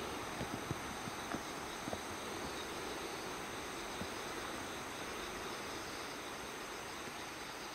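Steady chorus of summer insects, with a few light knocks in the first two seconds.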